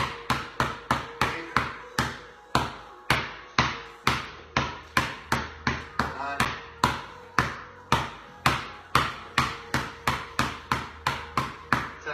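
Basketball dribbled hard on a bare concrete garage floor, sharp bounces about three a second, each with a short echo.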